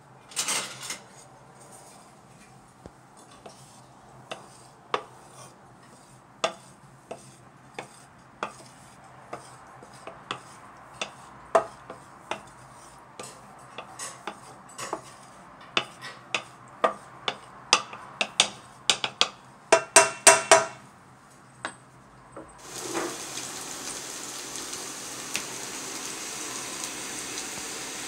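Wooden spatula knocking and scraping in a stainless-steel frying pan of oil: scattered sharp clicks, then a quick run of ringing metallic knocks about three quarters of the way through. Shortly after, a steady sizzle starts as sliced vegetables begin frying in the hot oil.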